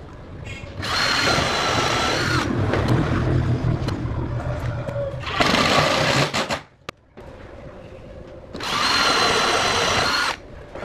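Electric angle grinder motor switched on in three short runs, each a second or two of steady high whine. A lower rumbling noise runs on between the first two runs.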